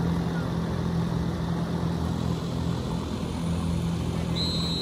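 A steady low engine drone, with one short, high whistle blast near the end.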